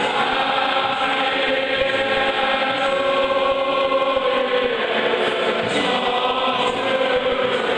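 A packed stadium crowd singing together in unison, thousands of voices holding long, slowly moving notes.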